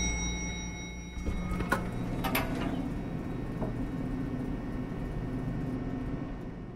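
Elevator doors sliding shut over a low steady hum, with a few sharp clicks about two seconds in; the hum fades out near the end.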